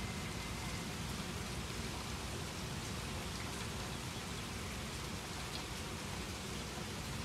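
Steady rain falling, an even hiss with a few faint drops ticking now and then.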